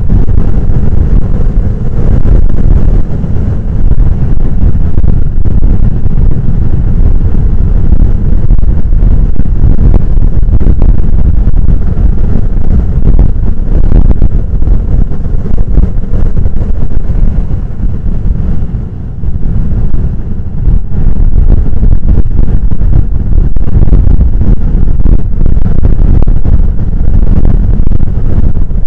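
Heavy ocean surf breaking on a sandy beach: a loud, continuous low rumble that eases briefly about two-thirds of the way through.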